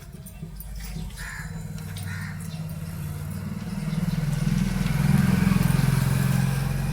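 A motor vehicle's engine running and growing louder about four seconds in, then easing slightly, as it passes close by. A crow caws about one and two seconds in.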